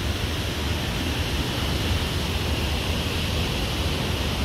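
Steady rushing noise with a low rumble underneath, with no distinct events.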